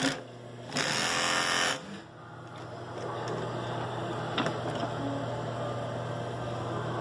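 Highlead two-needle industrial lockstitch sewing machine stitching fabric: a loud burst of fast sewing about a second in, then running on more quietly, with a single click near the middle. The machine has just been serviced and is sewing normally.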